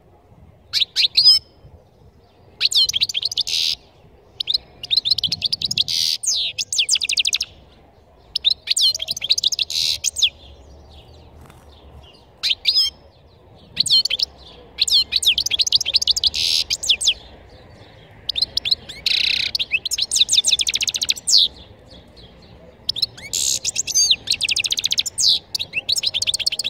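European goldfinch singing: loud, rapid twittering phrases, each one to two seconds long, broken by short pauses.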